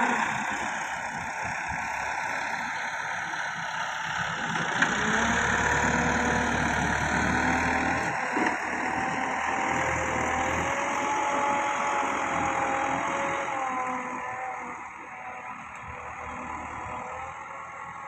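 Massey Ferguson 385 tractor's four-cylinder diesel engine running under load as it pulls a tine cultivator through the soil, its pitch wavering slightly. It fades over the last few seconds as the tractor moves away.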